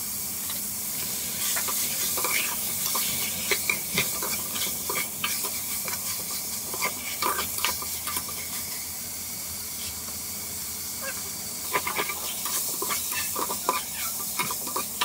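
Meat and fish pieces coated in spice paste sizzling in a metal pot, with a steady hiss, while a metal spatula stirs them, clinking and scraping against the pot. The clatter comes in two spells, with a quieter stretch of plain sizzling in the middle.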